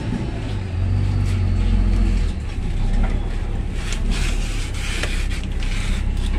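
A vehicle engine running steadily at idle as a low rumble, with a few light clicks and knocks over it.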